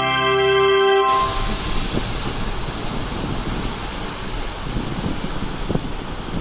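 Geyser erupting: a steady rushing of steam and water jetting from the vent, with a deep rumble underneath, likened to an airplane.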